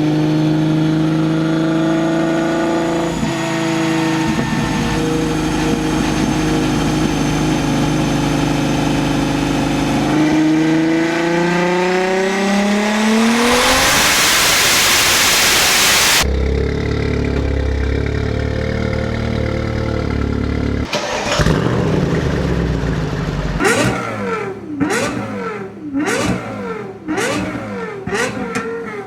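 High-performance sports car engines and exhausts. One runs steadily, then revs in a long climb to a loud peak and cuts off suddenly. Near the end there are quick throttle blips, each rev rising and falling about once a second.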